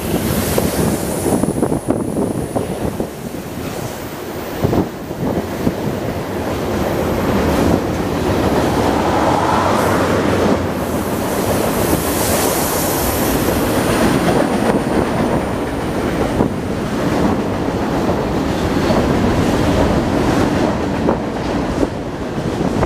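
Freight cars of a CPKC train rolling past on the track below: a steady rumble and clatter of steel wheels on rail, with a few sharp clicks. A faint high wheel squeal comes and goes twice.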